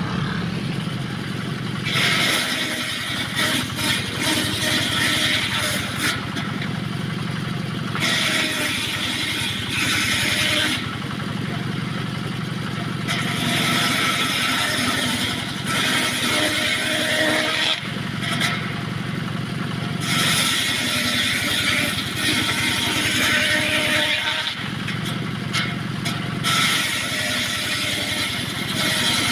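Engine-driven homemade circular sawmill running steadily as its blade cuts through small pieces of teak. The cuts come about five times, roughly every six seconds, each a few seconds of loud, high saw noise over the engine's hum.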